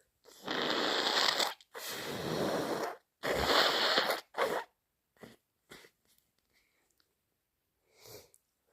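A person with an allergy fit forcing air hard through the nose: three long, loud blasts in quick succession, then a short fourth one, followed by a few faint clicks and a small sound near the end.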